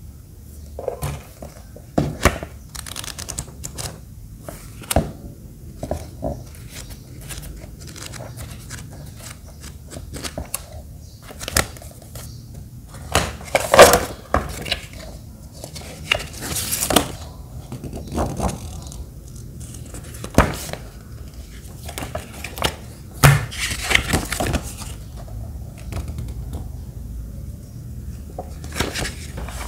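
Hands handling items in a cardboard gift box: scattered taps and clicks as things are picked up and set down, with paper posters rustling and crinkling in a few longer bursts.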